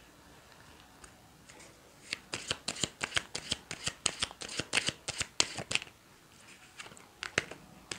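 Playing cards being shuffled and handled by hand: after a quiet start, a quick run of sharp papery card clicks for about four seconds, then two more clicks near the end.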